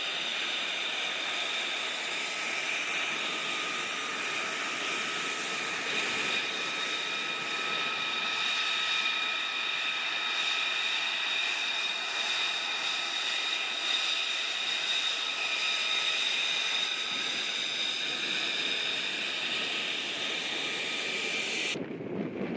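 Jet engine of a fighter aircraft running, a steady high whine of several tones over a rushing roar, which cuts off suddenly near the end.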